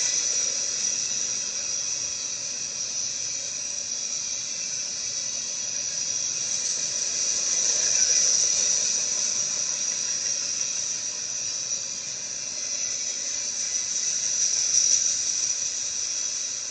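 A manifest freight train's cars rolling past, heard as a steady high hiss from steel wheels on the rails. It swells about halfway through and again near the end.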